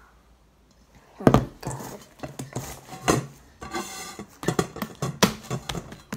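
Homemade glue slime being handled by hand, with a metal bowl and a wooden tabletop: a knock about a second in, then a run of clicks and pops as the slime is pulled from the bowl and pressed onto the table.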